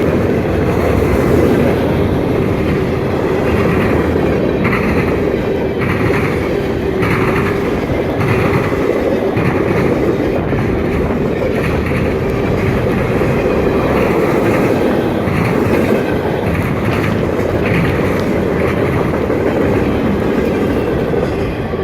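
Freight train rolling past: a steady, loud rumble of steel wheels on rail, with a regular clickety-clack about once a second as the wheels cross rail joints.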